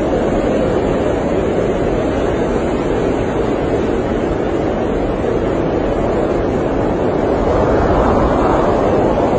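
Blizzard wind rushing steadily against an RV, a dense even roar with no distinct events, swelling a little near the end.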